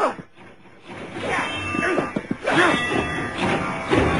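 Film soundtrack music with men's voices shouting over it; the sound drops away briefly just after the start, then builds again.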